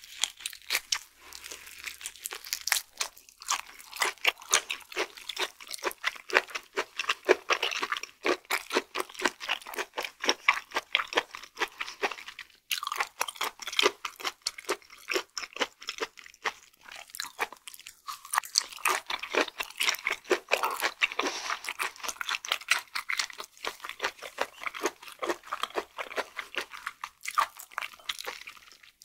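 Close-miked chewing of chewy raw flatfish sashimi: a continuous run of wet mouth clicks and smacks, with only brief lulls.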